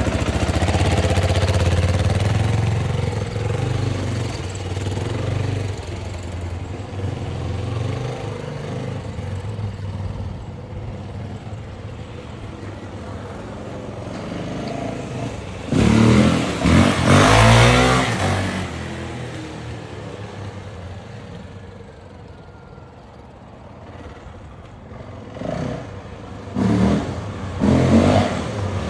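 Yamaha WR450F dirt bike's 450 cc single-cylinder four-stroke engine being ridden, fading as it moves away. About two-thirds through it comes back loud with a hard burst of revving, the pitch climbing and falling, then a few short throttle blips near the end.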